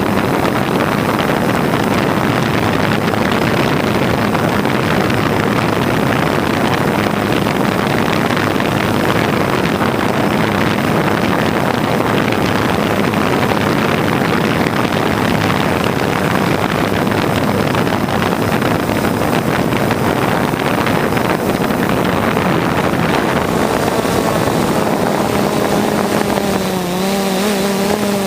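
Steady running noise of an aircraft in flight: propeller and motor drone under wind rush. A constant humming tone comes through more clearly near the end.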